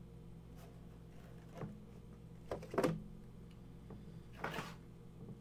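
Trading cards and their plastic holders being handled: a few soft clicks and rustles, the loudest near the middle, over a steady low electrical hum.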